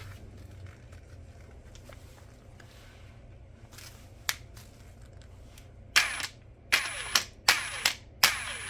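Mastercraft 40V cordless impact wrench triggered in a series of short blips, spinning free with no load: about six quick bursts of motor whine and hammer clatter in the last three seconds, after a single click about four seconds in.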